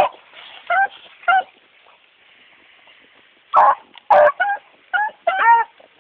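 Hounds barking in short, pitched yelps. There are a few yelps at first, then a pause, then two louder rough barks about three and a half seconds in, followed by a quick run of yelps.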